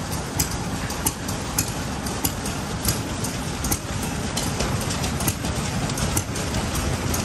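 Home-built hot-bulb stationary engine running, sharp regular beats a little more than one a second over a steady low sound.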